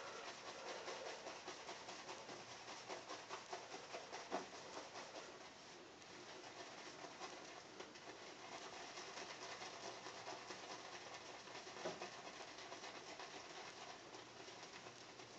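A damp shaving brush swirled on a puck of Mama Bear shaving soap to load it: a faint, continuous scratchy swishing of bristles on soap, with a couple of light taps.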